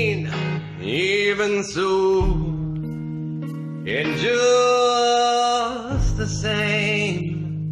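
Music: a man singing long, wavering held notes over a band accompaniment with a steady bass.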